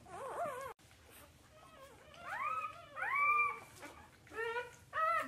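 Newborn golden retriever–Rottweiler cross puppy crying: four short, high whimpers, each rising and then falling in pitch, from about two seconds in.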